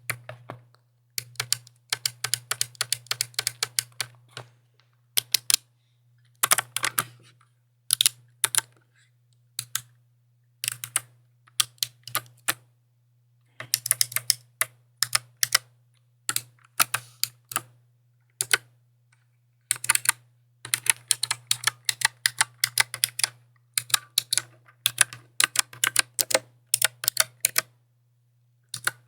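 Mechanical keyboard being typed on in bursts of rapid, crisp key clicks, with short pauses of about a second between bursts.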